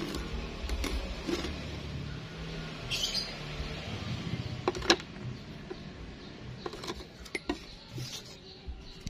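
Handling noise of a steel pipe and a thin abrasive cutting disc on a wooden workbench: scattered light clicks and taps, the sharpest about five seconds in, over a low background rumble.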